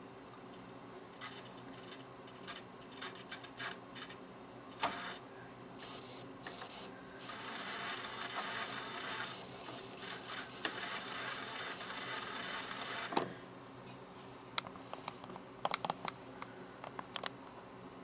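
Small hobby servo motors moving under joystick control: short whirs and clicks of the gear trains, then a steady buzzing whir for about six seconds in the middle, then more short clicks.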